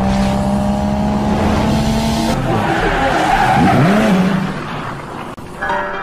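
Car sound effect: a high-running engine with squealing tyres, the pitch dipping and climbing back about three and a half seconds in, then fading out. Music starts near the end.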